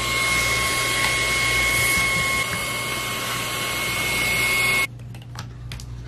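Handheld electric air blower spinning up with a rising whine, then running with a steady high whine and rushing air, cutting off suddenly about five seconds in. A few light clicks of parts being handled follow.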